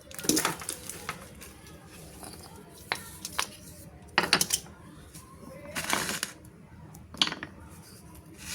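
Small hard objects and packaging being handled: a series of sharp clicks and short rustling bursts, about six in all, spread unevenly.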